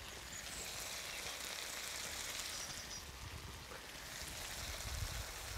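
Paella of rice and crayfish sizzling and bubbling steadily in a wide pan over a gas flame, the rice almost cooked.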